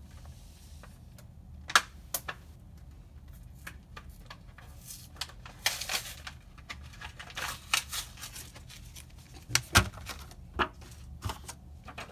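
Plastic packaging of a trading-card mystery pack being torn open and handled: crinkling, tearing rustles with a few sharp clicks and snaps, the loudest snaps near the end.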